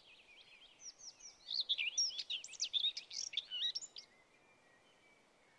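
Small birds chirping and twittering in quick runs of high, sweeping notes, busiest in the middle and cutting off abruptly about four seconds in, leaving only a faint hiss.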